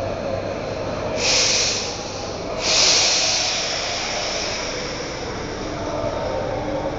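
Paris Métro Line 13 MF77 train standing at the platform, letting out two loud bursts of compressed-air hiss about a second and a half long each, the second fading away slowly. A steady low hum comes in near the end.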